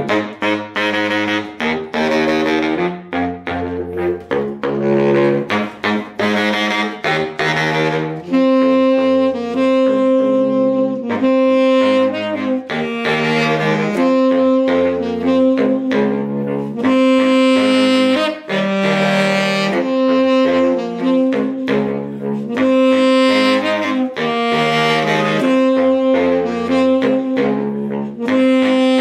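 Baritone saxophone playing a repeating, short-note riff, joined about eight seconds in by a tenor saxophone playing a melody of longer held notes over it.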